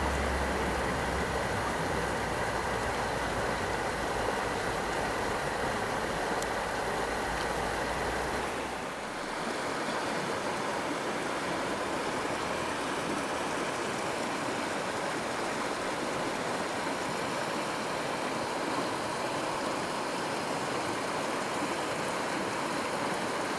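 Steady rush of flowing river water. For the first eight seconds or so a low rumble runs under it, stopping abruptly about nine seconds in.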